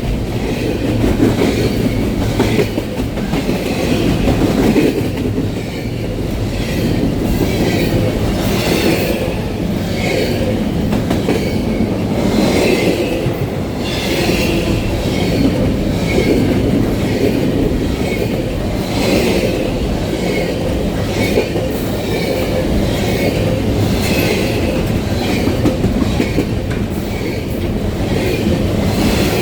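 Freight train cars rolling past: a steady rumble of steel wheels on rail, with a regular clicking as the wheels cross rail joints.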